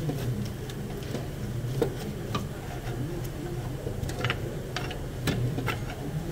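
Scattered, irregular clicks and taps of hand tools working on the engine, over a steady low hum.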